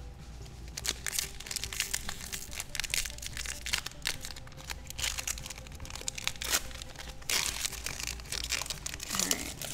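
Foil booster pack wrapper of Magic: The Gathering cards crinkling and tearing as it is handled and opened by hand, in many irregular crackles.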